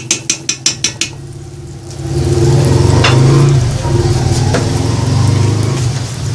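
Spatula scraping and tapping the bottom of an aluminium stockpot in quick strokes, about five a second, as butter melts in it. From about two seconds in, a loud low mechanical hum like a passing engine takes over for some four seconds, with a few light ticks of the spatula over it.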